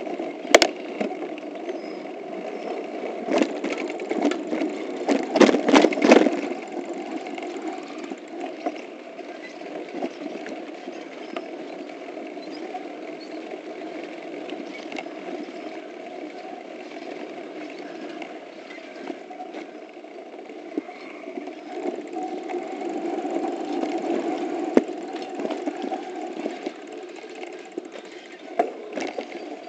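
Mountain bike riding over a dirt trail, heard through an action camera's microphone: a steady rumble of tyres and rattling bike parts, with a run of sharp knocks and rattles about three to six seconds in.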